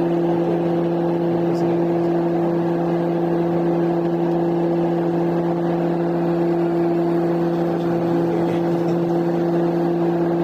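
Aircraft cabin noise in flight: the engines' steady drone heard from inside the cabin, a constant low hum with a rushing sound behind it.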